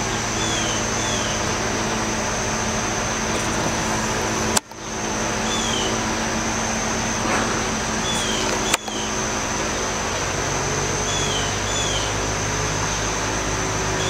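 Steady mechanical hum and hiss with a few faint, short, falling high chirps in pairs. The sound cuts out briefly twice, about four and a half and nine seconds in.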